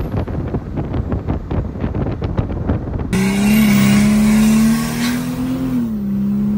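Mercedes-Benz OM603 turbodiesel straight-six with a Holset HY35 turbo, heard from inside the cabin. For the first three seconds an uneven, rough rumble; then, after an abrupt change, the engine pulls at high revs with a steady drone that rises slightly and drops back about six seconds in.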